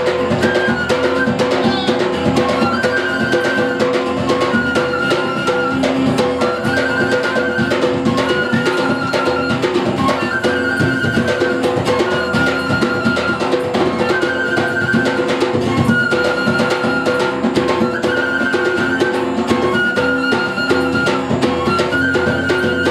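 Live flute, acoustic guitar and hand drum playing together, with a short high phrase recurring about every second or so over a steady drum rhythm.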